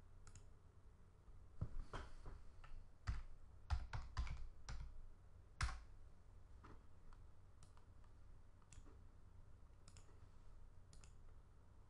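Faint, irregular clicking from a computer mouse and keyboard, a cluster of clicks in the first six seconds and a few lighter, scattered clicks after.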